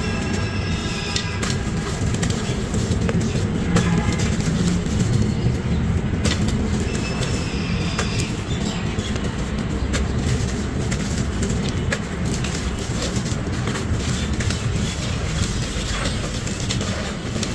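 Dry sand-cement crumbles crushed and ground by hand inside a terracotta clay pot: continuous gritty crunching and rubbing, thick with small crackles.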